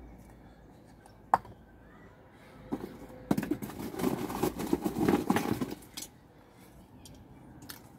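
Hands working a small terracotta pot and potting material: one sharp knock about a second in, then a few seconds of rustling and clattering as the pot is filled and handled.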